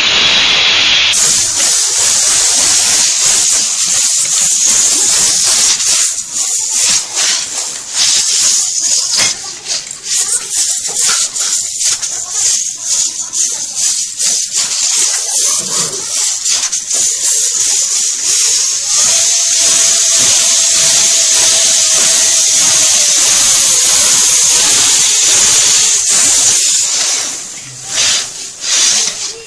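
Air blasting from an air blower's thin nozzle into a laptop's cooling fan: a loud, steady, high hiss that flutters as the nozzle moves. A faint tone slides down in pitch in the second half.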